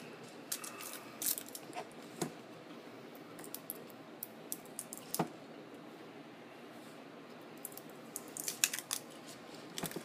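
Fingernails scratching and picking at tape on a cylindrical cardboard box, with quiet rustling and small clicks as the paper wrap is peeled off. Near the end comes a quick run of sharper scrapes.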